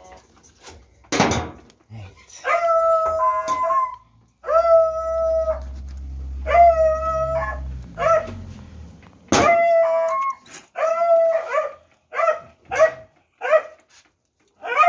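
A dog howling over and over in long, steady, high calls of about a second each, with a sharp knock about a second in and another partway through.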